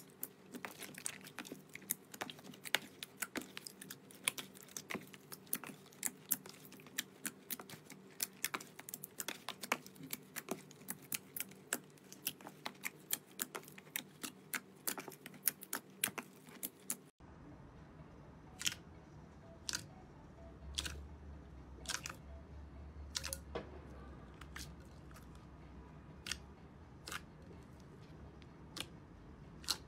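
Clear slime being pressed and poked by hand, giving a rapid, dense run of crackling clicks and pops from air bubbles squeezed in the slime. After a sudden cut about 17 seconds in, thicker opaque slime squeezed in a glass bowl gives sparser pops, about one a second, over a low hum.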